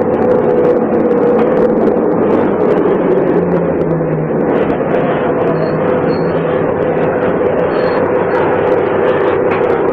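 Diesel engine of a manual-gearbox MAN SL 202 city bus running steadily while the bus drives, heard from on board.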